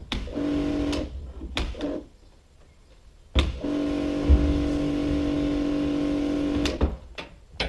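Electric pressure washer cleaning out the inside of a plastic IBC tank, running in bursts as the trigger is squeezed and let go: its pump motor hums steadily under the hiss of the jet, twice briefly and then for about three seconds.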